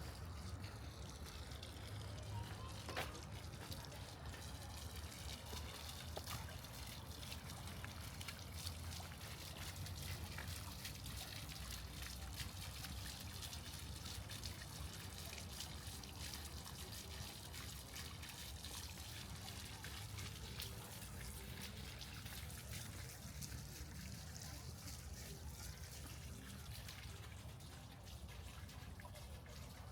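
Faint, steady trickle of water from a garden fountain, over a low steady rumble.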